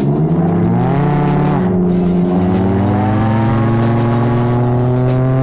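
Can-Am Ryker three-wheeler's engine accelerating from a stop, its pitch climbing, dipping briefly about two seconds in, then rising slowly and steadily as it picks up speed.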